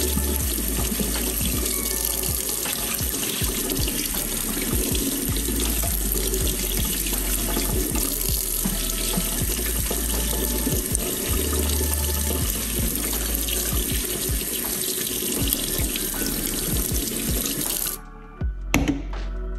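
Tap water running steadily into a stainless steel sink as bell peppers are cored under the stream. Near the end the water sound cuts off suddenly and a few short knocks follow.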